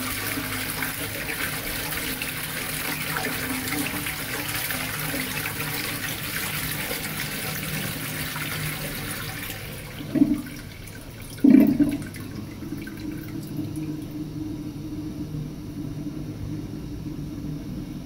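Toilet flushing: water rushing steadily into the bowl, easing off about ten seconds in, with two brief louder sounds about a second apart, after which water keeps running more quietly.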